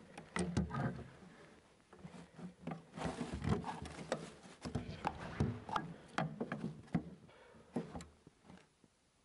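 Irregular wooden knocks and clicks with rustling in between, from branches and logs being handled. The knocks thin out and fade near the end.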